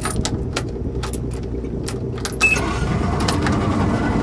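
Ignition keys jingling and clicking at the helm, a short beep about two and a half seconds in, then the 1995 Johnson 200 hp V6 two-stroke outboard starts and runs at a quiet idle.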